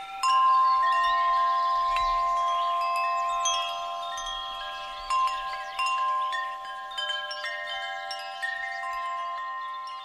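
Wind chimes ringing: many clear metal tones struck one after another and left to ring over each other, loudest near the start and slowly fading.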